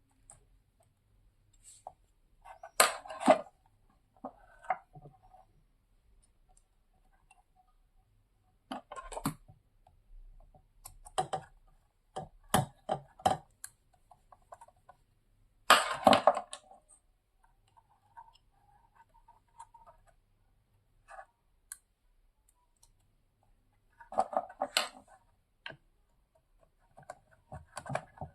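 Scattered sharp clicks and clacks of small metal tools and parts being handled as an amplifier power IC is screwed down onto its heat sink, coming in several short clusters.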